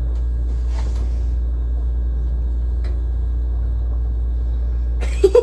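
A steady low rumble, even in level, with a couple of faint ticks.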